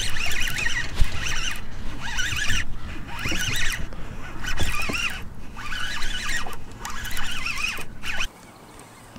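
Fishing reel being cranked in about seven quick whirring bursts while a hooked fish pulls against the bent rod; it stops abruptly near the end.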